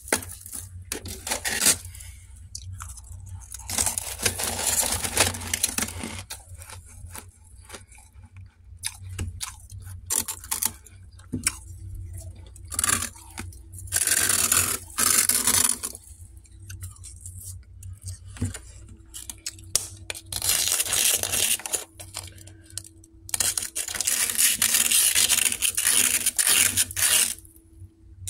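Soft fresh frost being scraped off freezer walls with a plastic spoon and scooped by hand, in crunchy scraping runs of a few seconds with short pauses between them. A faint steady hum sits underneath.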